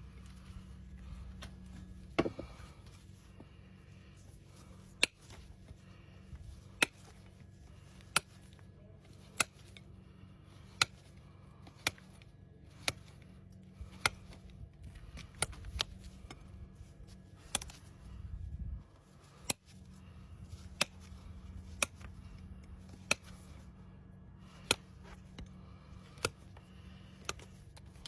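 Sharp cutting snaps of a hoof-trimming tool biting through hoof horn, one about every second, with a brief rougher scrape about two thirds of the way through.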